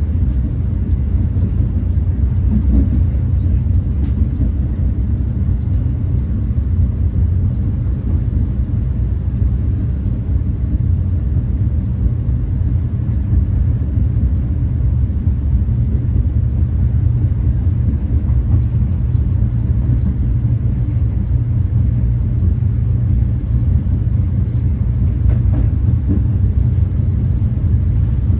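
Renfe class 130 (Talgo 250) high-speed train running steadily at about 200 km/h, heard from inside the coach as a constant low rumble.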